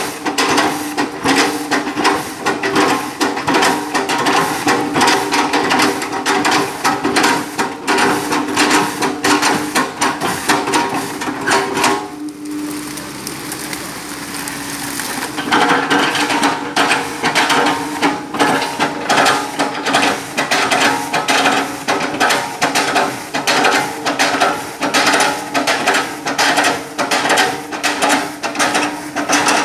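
Caterpillar 313 excavator at work: fast, repeated hammering strikes over a steady engine tone. The strikes stop for about three seconds some twelve seconds in, then start again.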